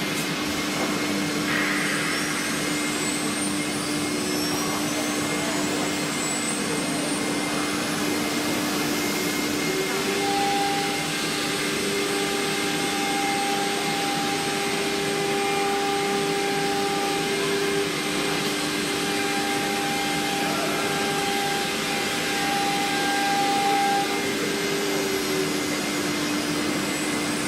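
A wood CNC router running as it engraves: a steady motor whine over a continuous rushing noise. A second, higher whine comes and goes from about ten seconds in.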